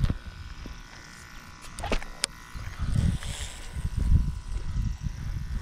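Wind rumbling on the microphone with handling noise from a fishing rod, and two sharp clicks about two seconds in, over a faint steady buzz.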